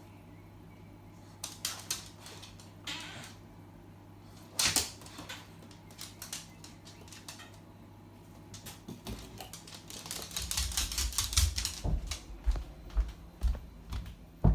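A dog pulling celery out of an open fridge: scattered sharp clicks and one louder knock about five seconds in, then from about ten seconds in a dense run of crisp clicking and crunching with soft thuds, over a low steady hum.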